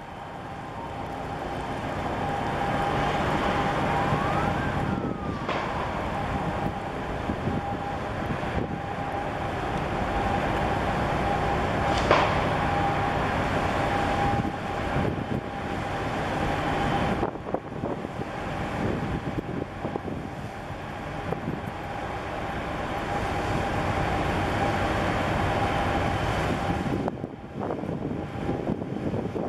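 Container ship MAERSK DANUBE passing close by: a steady rumble and rushing noise with a constant hum-like tone, swelling over the first few seconds. A short whistle rises and falls about five seconds in, and a sharp click comes about twelve seconds in.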